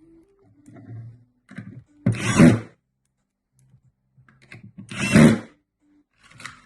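A handheld power tool run in two short bursts, each under a second, about three seconds apart, with light knocks of handling between.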